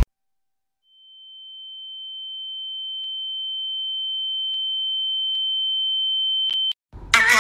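A steady high-pitched electronic tone with a fainter lower tone beneath it, fading in from silence and growing slowly louder for about six seconds. A few faint clicks come through it, and it cuts off abruptly after two sharper clicks near the end.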